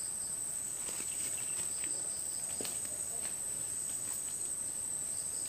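Steady high-pitched chirring of insects, likely crickets, with a few faint clicks and rustles over it.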